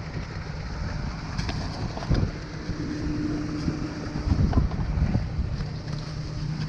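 Concrete pump truck engine running steadily under load, with wind buffeting the microphone and a few short knocks.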